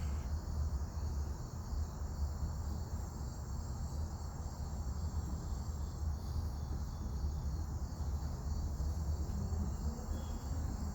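Crickets chirping steadily over a continuous low rumble.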